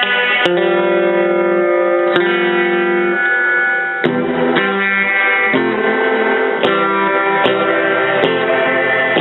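Electric guitar played through a Roland Jazz Chorus combo amplifier: chords struck about eight times and left to ring.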